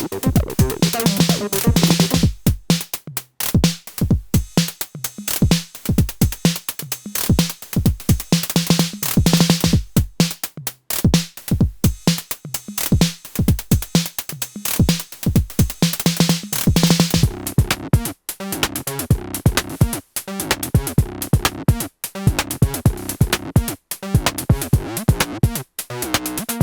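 Acid techno pattern at 128 bpm played on a Moog DFAM, Behringer CAT and Elektron Syntakt: a steady drum-machine beat under a synth bass line. A bright, hissy swell comes in about every eight seconds.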